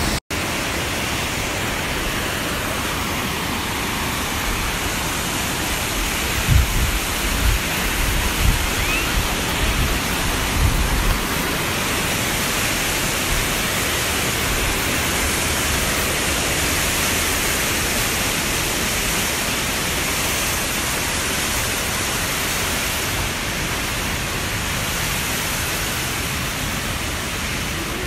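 Mountain stream rushing over rocks in white-water rapids, a steady rush of water. A few low thuds come between about six and eleven seconds in.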